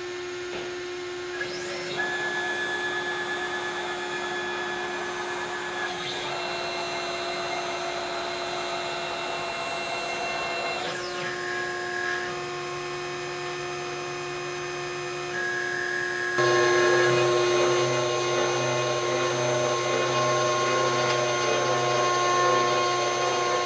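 Chinese CNC router's spindle running steadily while its stepper motors whine at steady pitches that change every few seconds as the head travels to zero and across to the workpiece. About two-thirds of the way through it grows louder as the ball-nose bit starts cutting the wood on the finishing pass.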